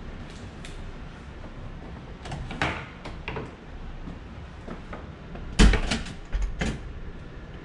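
Clicks and knocks of a door being handled, with a heavy thump about five and a half seconds in and two more knocks soon after.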